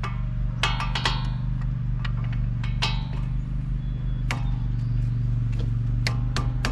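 Metal tools clinking and ringing in scattered knocks, a few close together about a second in and a cluster near the end, as a socket wrench works on the nuts at the back of a truck's front wheel hub assembly. A steady low machine hum runs underneath throughout.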